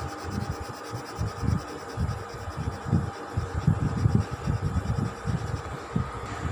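A blue colored pencil scrubbed back and forth on a workbook page, heard as a rapid, uneven run of dull rubbing strokes, with a faint steady hum underneath.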